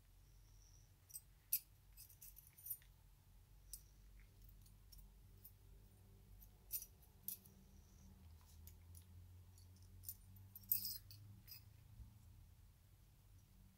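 Faint, scattered clicks and light clinks of the small steel parts of a Colt 1908 vest pocket pistol being handled and worked apart by hand. The loudest cluster of clicks comes about three-quarters of the way through.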